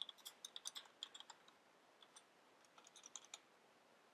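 Faint typing on a Corsair K70 RGB mechanical keyboard: quick runs of keystrokes with a short pause in the middle.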